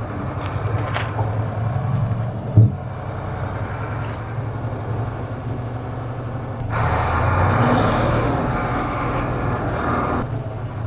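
Mercedes-Benz Unimog U2450 6x6 truck's diesel engine running steadily under load in low gear over rough ground, with one heavy thump about two and a half seconds in. From about seven seconds in, a louder rushing noise joins it for a few seconds.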